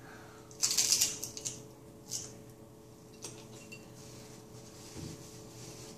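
Crunching as a crisp fried tortilla is bitten and chewed: a loud crunch about a second in, then a shorter one and a faint click.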